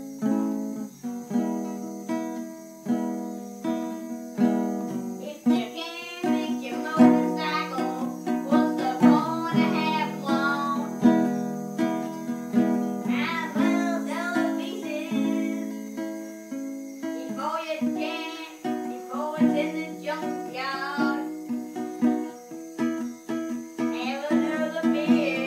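A strummed guitar plays the chords of a song. A man's voice sings along over it from about five seconds in, in stretches and without clear words.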